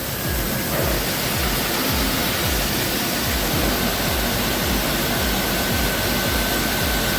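Background music with a steady low beat over a continuous rushing noise; a thin steady tone comes in about two and a half seconds in.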